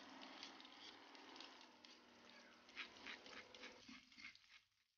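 Sliced onions sizzling faintly in oil in an aluminium wok: a soft hiss with scattered small crackles that fades out about four seconds in.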